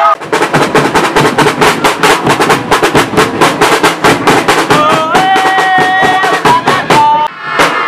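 Supporters' marching drums beaten in a fast, steady rhythm of several strokes a second. Shouting voices join over the drumming about five seconds in.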